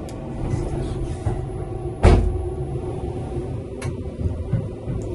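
Steady low rumble of a Seibu 4000 series train running, heard from inside its toilet compartment. A single sharp knock comes about two seconds in, with a few lighter clicks.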